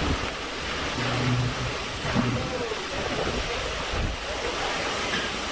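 Hurricane-force wind blowing in a steady rushing noise, with gusts buffeting the microphone.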